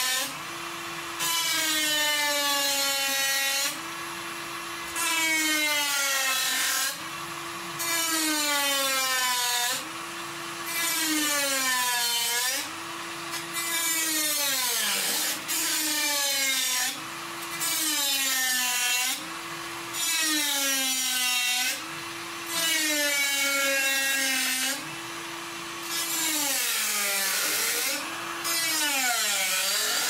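Dremel rotary tool with a cutoff wheel cutting through a sheet-metal computer case panel. A high motor whine and a harsh grinding that comes and goes about every two seconds as the wheel is worked along the cut line. Between passes the motor's pitch sags and then picks back up.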